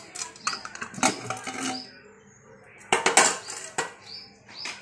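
Aluminium pressure cooker lid being unlocked and lifted off, with metal clinks and scrapes and a loud clatter about three seconds in.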